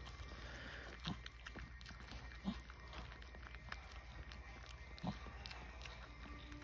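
Faint, brief squeaks and grunts from a newborn puppy as it is handled, a few spaced several seconds apart over a quiet background.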